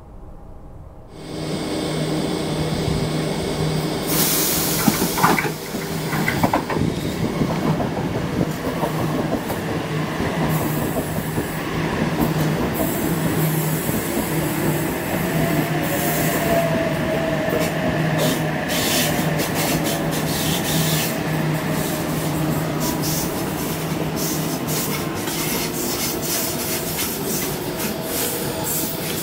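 Two Sydney Trains H-set (OSCAR) electric multiple units departing, heard from the platform, starting about a second in: a steady low hum from the traction equipment, a motor whine that rises and falls partway through, and rapid clicks from the wheels later on.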